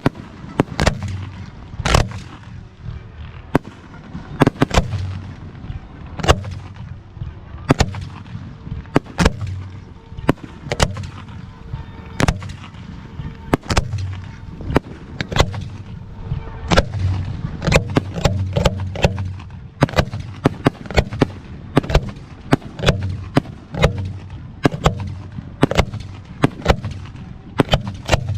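Aerial fireworks bursting in a steady barrage of sharp bangs and rumbling booms, thickening into rapid volleys of several reports a second in the second half.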